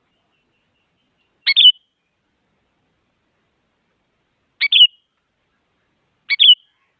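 Sooty-headed bulbul (kutilang) giving three short, clipped calls, each a quick two-part note: the first about a second and a half in, then two more close together near the end, with silence between.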